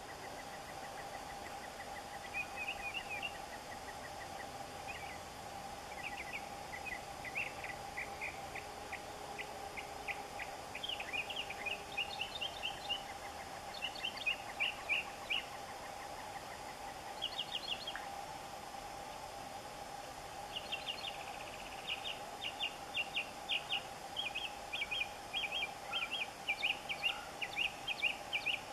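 Northern mockingbird singing: a string of varied, rapid phrases, many of them single notes repeated quickly in runs, with a short pause in the middle and a near-continuous stretch in the second half. A steady hum runs underneath.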